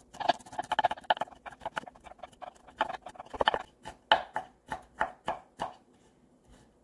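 Chef's knife chopping garlic on a wooden cutting board: rapid, uneven knocks. About four seconds in, slower, longer strokes come about two a second as the blade scrapes the minced garlic together, then they stop.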